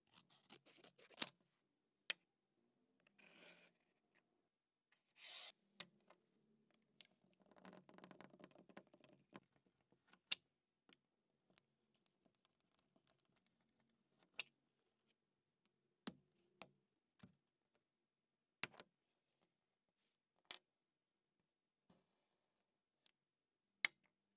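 Quiet crafting sounds: scissors snipping a thin red sheet near the start, then a blade scraping and scoring a small plastic box, with a longer stretch of scraping about eight seconds in. After that come scattered sharp clicks and taps as small plastic pieces are handled on a hard tabletop.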